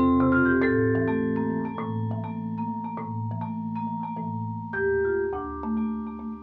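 Vibraphone and marimba played together by one player with four mallets: quick struck notes over long ringing vibraphone tones and deep marimba notes, with a louder group of strikes about five seconds in.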